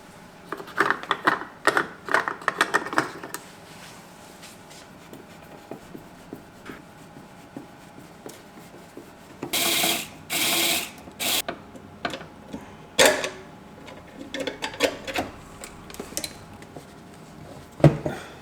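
Hand tools and metal parts being handled during car repair work: irregular clicks and rattles, two short hisses about halfway through, and a single knock near the end.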